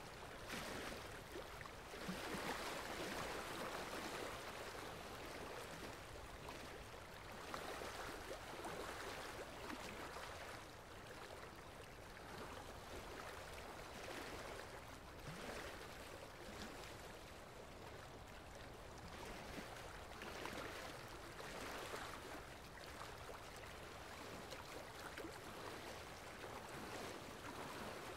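Gentle sea waves washing in, the wash swelling and easing every few seconds.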